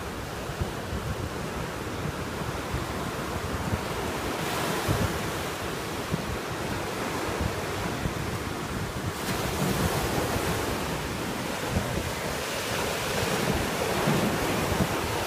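Ocean surf breaking and washing up the sand, swelling and easing as the waves come in, with wind buffeting the microphone.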